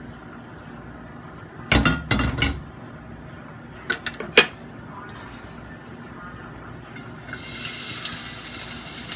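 Aluminium wok clattering on the gas stove's grate as it is set back down after swirling the oil, followed by two sharp clicks. About seven seconds in, chopped onion hits the hot oil and a steady sizzle starts.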